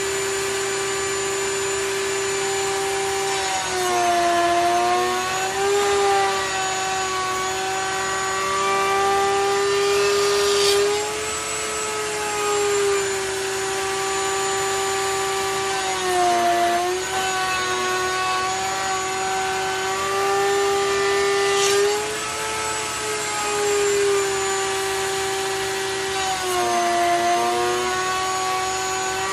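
A power tool's electric motor running steadily at high speed, its pitch sagging briefly three times as it takes a load, with short scratchy cutting noises in between.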